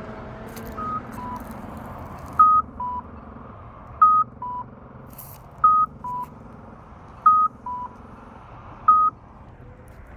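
Electronic two-note beeping from an accessible pedestrian signal: a higher beep followed by a lower one, the pair repeating about every second and a half. There is one fainter pair about a second in, then five louder pairs.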